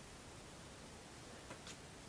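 Quiet room hiss with two faint light clicks near the end, wooden model pieces being handled and fitted together.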